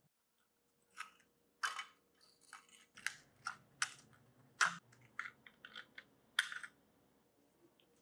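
A series of short, irregular scraping strokes, about a dozen over some six seconds, some sharper and louder than others.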